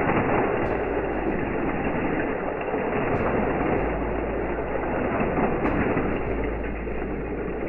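Hot Wheels die-cast toy trains rolling fast along plastic track, a steady rattling rumble of small wheels on the track.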